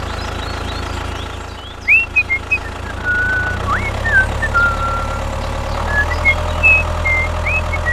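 Steady low drone of a tractor engine idling, with short high whistling chirps that glide up and down, scattered from about two seconds in.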